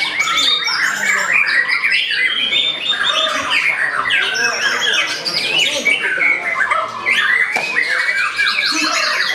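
White-rumped shama singing loud, rapid, varied phrases in a dense chorus of caged songbirds, the overlapping chirps and whistles running without a break.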